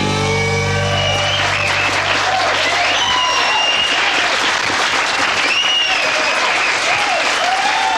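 Audience applauding at the end of a country song, with the band's last chord ringing out under it for the first couple of seconds.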